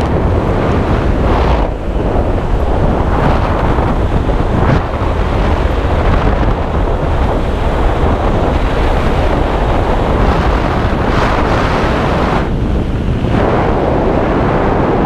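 Wind rushing over a camera microphone during a parachute descent under an open canopy: a loud, steady rush that swells and eases slightly.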